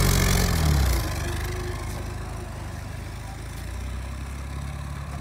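Military jeep's engine coming down off a rev, its note falling and fading about a second in, then running at a steady low idle.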